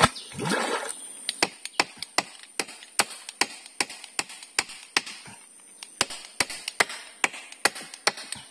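Repeated sharp wooden knocks, about two to three a second, from a hand tool striking a wooden pole where a crossbar is being fixed on a shelter frame standing in water.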